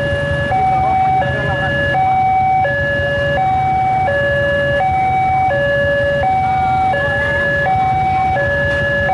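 Railway level-crossing warning alarm sounding a two-tone hi-lo signal, switching between the two tones about every two-thirds of a second: the crossing is closed for an approaching train. Underneath runs the low hum of idling motorcycle engines.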